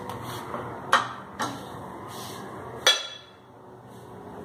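A spatula knocks against a frying pan with a paratha in it, a sharp knock about a second in and a smaller one just after. Near the three-second mark it is set down on a plate with a sharp, ringing clink.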